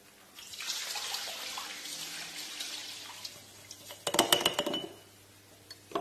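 Liquid poured from a bowl into a marbling tray, splashing steadily for about three seconds. About four seconds in, a quick rattle of a brush handle knocking inside a glass paint jar as the paint is stirred.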